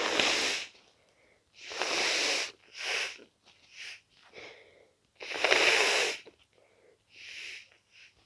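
A person with a head cold blowing a congested nose hard: four loud noisy blasts, each under a second long, with quieter short sniffs between them.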